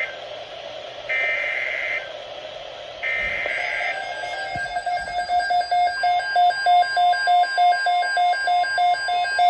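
NOAA Weather Radio Emergency Alert System SAME header: the last two of its three one-second bursts of high, screechy digital data, with a one-second gap between them. Then a weather radio receiver's alarm beeps about three times a second, and about six seconds in the steady 1050 Hz weather radio warning tone joins it, signalling that an alert message is about to be read.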